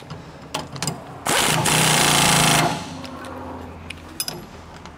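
Impact wrench hammering for about a second and a half, driving a 19 mm socket to tighten a sway bar link nut, with a few sharp tool clicks just before it.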